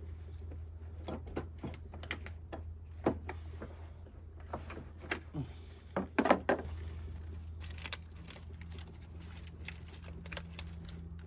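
Scattered plastic clicks and knocks of hands working at the PCM's wiring connectors, with the loudest cluster about six seconds in, over a steady low hum.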